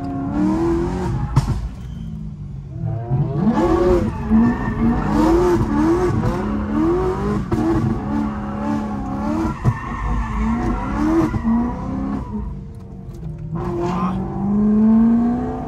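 Supercharged, straight-piped BMW M3 E90 V8, heard from inside the cabin, revving up and down again and again as it is driven hard through bends, with a few sharp cracks. Near the end it pulls in one long rising rev.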